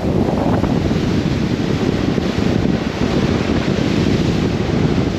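Wind buffeting the microphone over water rushing past the hull of a boat under way, a loud, steady rush with heavy low flutter.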